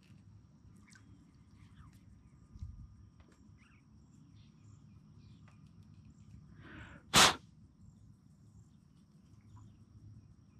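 Quiet outdoor ambience on a river: a low steady rumble with faint scattered bird chirps. About seven seconds in, one short sharp puff of noise close to the microphone stands out above it.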